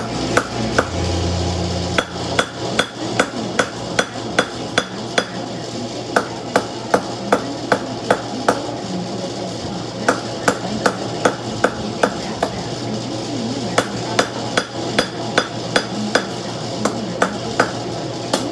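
Hand hammer striking hot steel on a post anvil while forging a knife blade: steady runs of blows, about two and a half a second, broken by short pauses.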